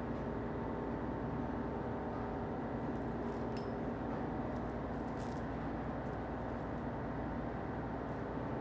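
Steady mechanical hum, like a running fan, with a few faint light clicks about three seconds in and again about five seconds in.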